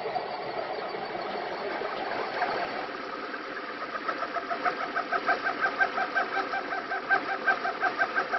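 Desktop 3D printer's stepper motors whining as the print head moves. From about four seconds in, quick back-and-forth moves turn this into a pulsing of tones about four to five times a second.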